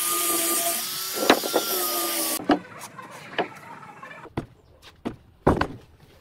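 A handheld electric angle grinder runs steadily with a motor whine as it sands a carved wooden block, then cuts off about two and a half seconds in. Several sharp wooden knocks follow as the wooden blocks are set down on the table.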